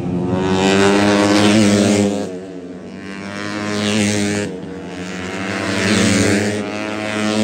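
Racing motorcycles going past one after another on a road-race circuit, their revving engines swelling and fading about every two seconds.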